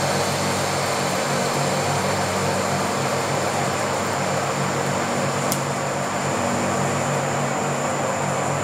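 Pratt & Whitney Model C engine lathe running under load through a deep facing cut across a 6-inch steel bar with a CNMG carbide insert, the cut tearing off chips. Steady, even machine noise over a low hum and a thin high whine, with a single sharp click about five and a half seconds in.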